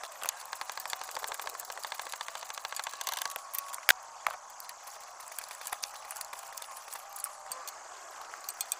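Hand ratchet with an extension and 13 mm deep socket clicking in quick even ticks while backing out the exhaust manifold heat-shield bolts. There is one sharp metal clink about four seconds in, and the ratchet starts clicking again near the end.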